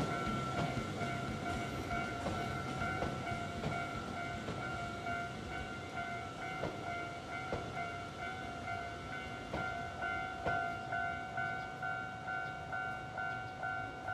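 Japanese level-crossing warning bell ringing in a steady, repeating ding-ding while a Nankai train passes over the crossing, its wheels knocking over the rail joints.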